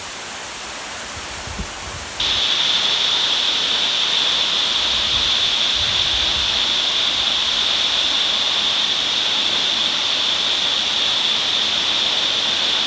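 Waterfall pouring, a steady rush of falling water, running high after two weeks of rain. It jumps louder about two seconds in and stays at that level.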